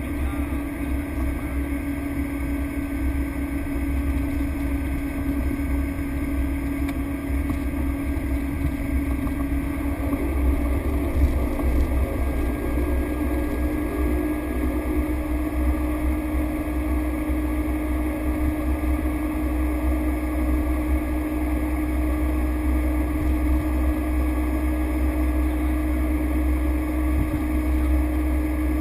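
Cessna Grand Caravan's single Pratt & Whitney PT6A turboprop engine running, a steady drone over a deep rumble; its pitch rises slightly and it gets a little louder about ten seconds in.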